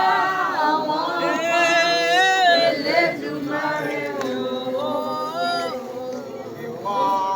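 A group of voices singing together, unaccompanied, with held notes that glide up and down.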